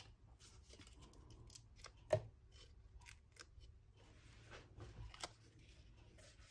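Paper and card being handled on a craft mat along with a sheet of 3D foam adhesive dots: faint rustles and scattered light clicks, with one sharper tap about two seconds in.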